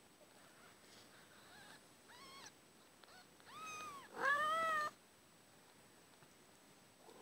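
Kitten mewing three times in a row, each call rising then falling in pitch, the last the loudest and longest.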